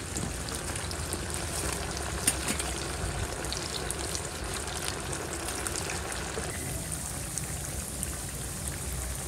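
Potato wedges deep-frying in hot oil in an iron kadhai: a steady sizzle with scattered small crackles and pops.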